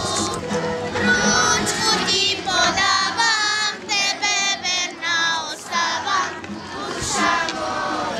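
A group of children singing together in unison while walking in procession.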